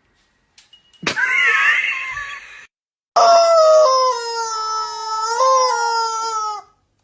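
A cat yowling: a short ragged cry about a second in, then one long, loud drawn-out yowl.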